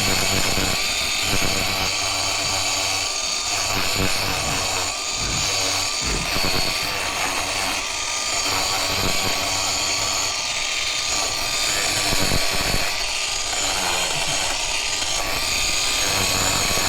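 Electric angle grinder running steadily as it grinds down a horse's hoof, doing the work of a hoof rasp. Its pitch wavers up and down every couple of seconds.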